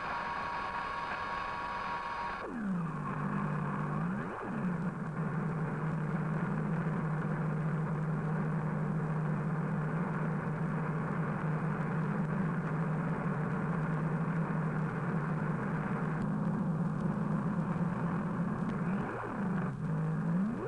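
A steady low mechanical drone. A higher whine sits on top of it and cuts off abruptly about two and a half seconds in.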